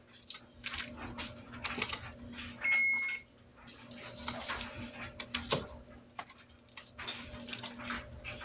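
Utensils clinking and knocking against a pan while chicken legs are turned, with one short high electronic beep about three seconds in, over a steady low hum.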